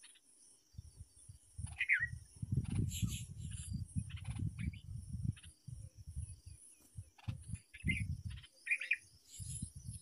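Outdoor ambience: a steady high insect drone with a few short bird chirps, about two seconds in and again near the end. The loudest sound is an uneven low rumble on the microphone.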